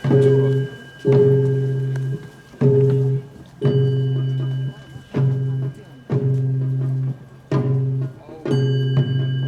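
A struck bell ringing in pairs about a second apart, each ring held for about a second and then cut short, in a slow steady rhythm. A faint high ringing runs underneath.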